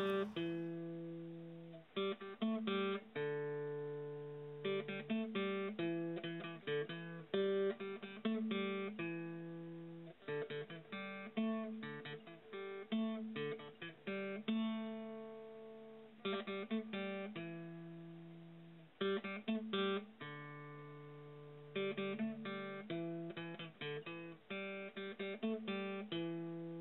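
Solo guitar music: quick flurries of picked and strummed notes, each flurry left ringing and fading away before the next.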